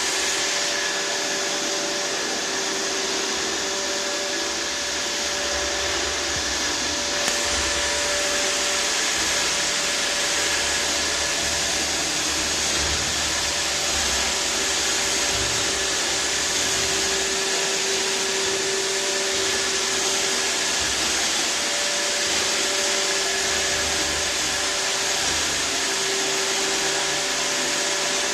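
iRobot Roomba 612 robot vacuum cleaner running steadily: an even whir with faint humming tones that waver a little, and a small tick about seven seconds in.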